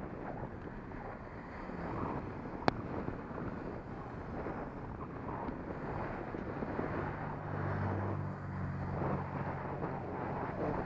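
Wind rushing over the microphone of a moving bicycle, with one sharp click a few seconds in. In the second half, the low, steady engine hum of an oncoming car.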